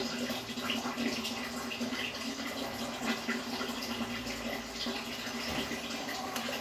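Aquarium water bubbling and trickling steadily, with many small pops and a low steady hum from the tank's water circulation.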